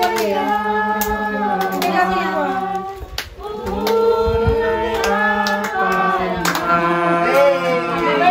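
Several voices singing together in held phrases, with a short break about three seconds in, and scattered hand claps.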